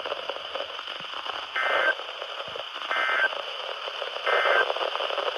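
Hiss and static from a weather radio receiver. Three short data bursts come about a second apart: the repeated SAME digital header that opens an NOAA Weather Radio warning broadcast.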